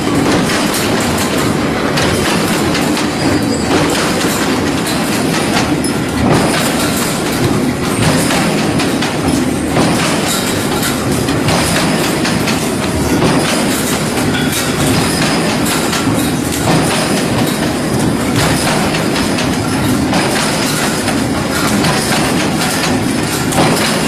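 Hexagonal wire mesh (gabion basket) weaving machine running, with a loud, continuous metallic clatter and rattle.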